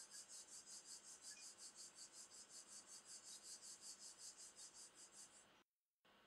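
A cricket chirping faintly in an even run of short high-pitched pulses, about five a second, over low room hiss; the chirping cuts off abruptly shortly before the end.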